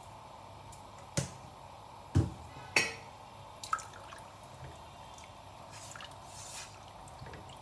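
A spatula stirring watery rice and chicken in a nonstick pot, with liquid sloshing and dripping. Three loud sharp knocks come between about one and three seconds in, and a smaller one shortly after.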